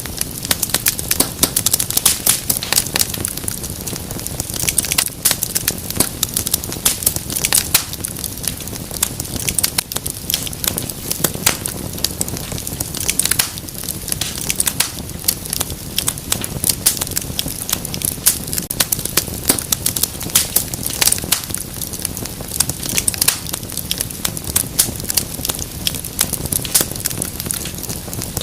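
Wood fire in a fireplace burning steadily, with a constant low rush and dense, irregular crackles and pops.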